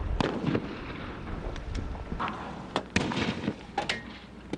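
Several sharp bangs and pops of weapons fire at an irregular pace, the loudest about three seconds in, over the noisy background of a street confrontation.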